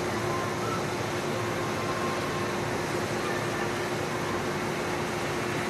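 Train-washing plant working on a slowly passing electric train: a steady rush of water spray and spinning brushes, with a steady hum underneath.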